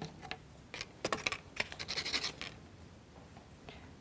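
A wooden toothpick being pushed into a small plywood model-kit part on a cutting mat: a run of light clicks and scratches of wood on wood, dying away about halfway through.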